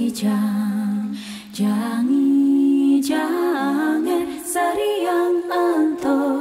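Music: a voice singing a slow melody in long, held notes with little or no accompaniment, pausing briefly for breath between phrases.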